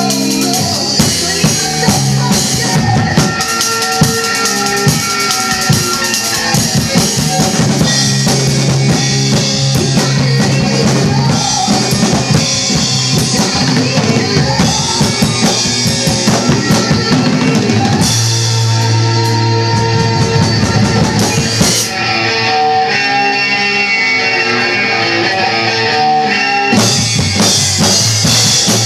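Drum kit played along with a rock band recording: kick drum, snare and cymbals over sustained pitched band tones. About 22 seconds in the cymbals and low end drop away for a few seconds, then the full band and drums come back in about 27 seconds in.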